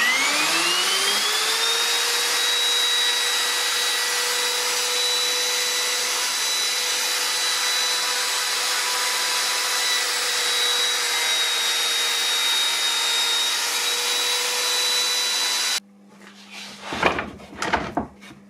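Green Bosch handheld router spinning up, its whine rising in pitch over the first two seconds, then running steadily at full speed as its bit surfaces a wooden slab in a sled jig. The sound cuts off suddenly near the end, followed by a few knocks and clatters.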